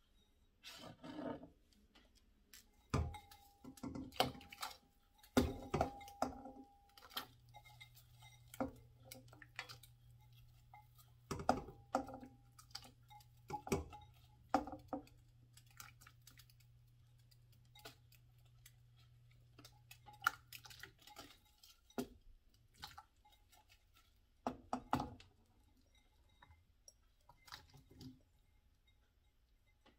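Chopped potatoes being dropped by hand from a glass bowl into a stainless steel pot: irregular knocks and clinks of potato pieces landing and the bowl tapping the pot, in clusters with pauses between.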